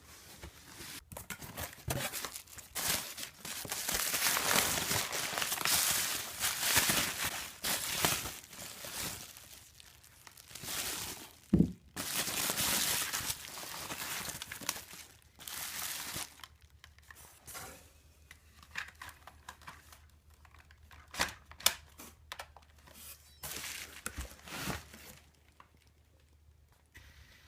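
Irregular crinkling and rustling handling noise, with a few sharp clicks; the loudest click comes a little before halfway.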